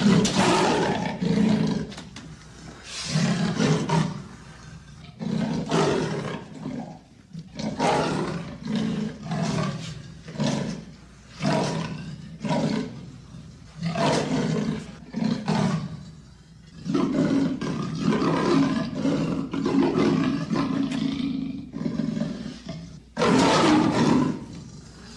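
Amur leopard roaring in a long series of short, loud calls, about one a second with brief pauses, a few running longer; the calls begin suddenly and are loudest at the start and again near the end.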